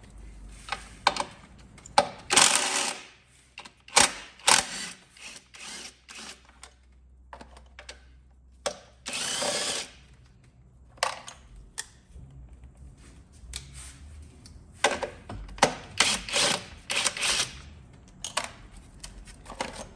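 Tools working the bolts of a car's intake manifold as it is being removed: irregular metallic clicks and several short rasping bursts, like a ratchet being worked.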